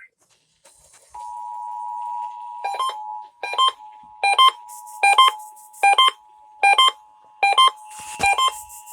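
Emergency Alert System attention signal: two steady tones sounding together, starting about a second in, with a separate beep repeating on top of it about every 0.8 s.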